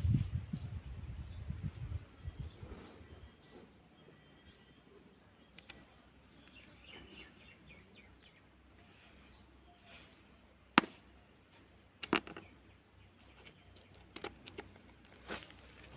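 A low rumble for the first two seconds or so, then a quiet background with faint bird calls, broken later by a few sharp clicks or knocks, the loudest two about a second apart.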